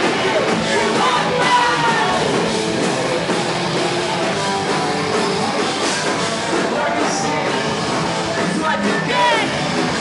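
Live heavy rock band playing loud amplified music with distorted guitars, drums and vocals.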